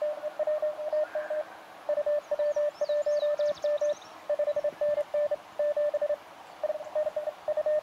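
Morse code (CW) heard from the Elecraft KX2 transceiver's speaker: one steady beeping tone keyed in fast dots and dashes, in several runs with short gaps. It is fast, even sending, which the operator takes for computer-sent contest traffic.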